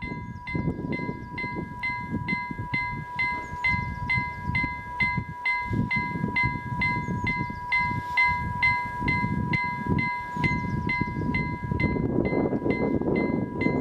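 Level-crossing warning bell ringing in a steady rapid rhythm of about three strikes a second, signalling that a train is approaching. An irregular low rumble runs underneath.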